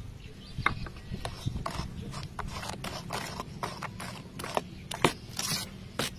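A ceramic spoon stirring thick batter in a metal bowl, with irregular clicks and scrapes against the bowl.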